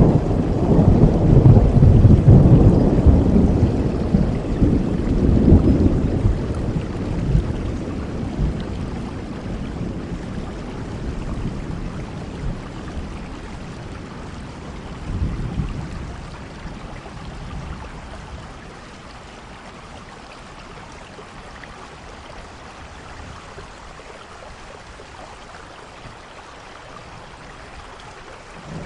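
Steady rain with rolling thunder. A long, loud rumble fills the first several seconds and slowly dies away, a shorter rumble comes about halfway, and then only the even hiss of rain is left.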